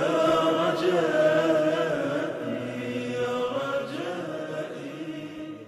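Wordless vocal chanting with long held notes sliding from pitch to pitch, fading out near the end.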